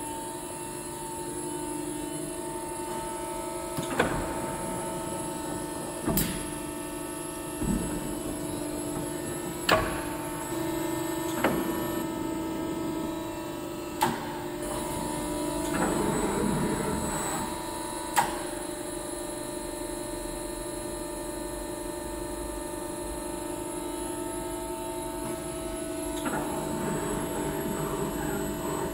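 Schwarze-Robitec CNC tube bending machine running with a steady hum, broken by sharp clunks at irregular intervals and two short swells of rushing noise.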